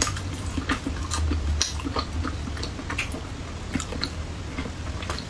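Close-up sounds of a person biting and chewing a slice of soft, thick-cut chocolate whole-wheat toast, a string of small, irregular moist clicks.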